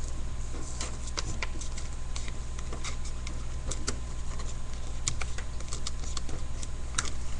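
A sheet of paper being folded and creased by hand: irregular crackles and rustles, over a steady low hum.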